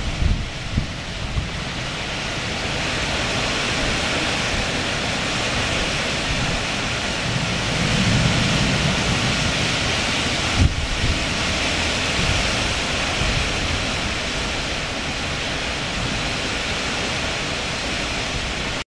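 Strong gusty wind rushing through trees, a steady hiss of blowing leaves, with the wind buffeting the microphone in low rumbles near the start. A single brief thump about ten seconds in.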